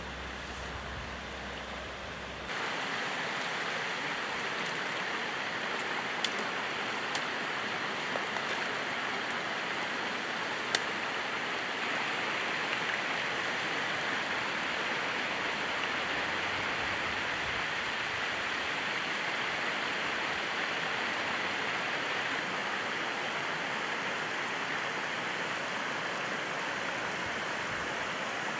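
Steady rushing noise of running water, with a few faint clicks about a quarter of the way in.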